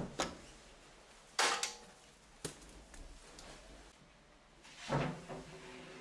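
Knocks and clatter of a plastic hose fitting being loosened and handled against the metal back panel of a washing machine: a few sharp clicks, the loudest clatter about a second and a half in, another near the end.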